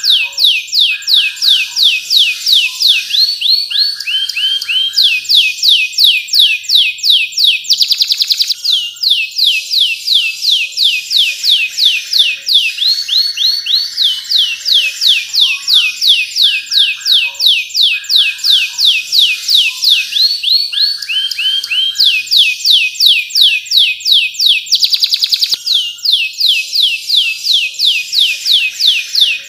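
Domestic canary singing: long runs of quick, falling whistled notes, several a second, broken by short trills and rolling phrases.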